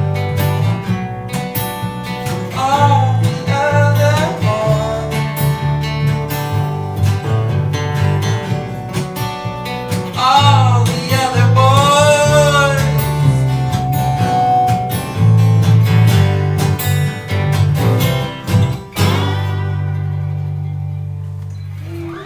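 Three acoustic guitars strummed together with a sung melody, the closing bars of a folk song; about three seconds before the end the last chord is struck and left to ring out, fading away.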